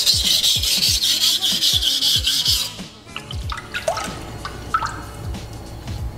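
Steel blade of a kurouchi petty knife stroked quickly back and forth on a coarse whetstone, a rhythmic wet rasping as the chipped edge is ground down. It stops about three seconds in, leaving background music with a deep bass beat and a few small clicks.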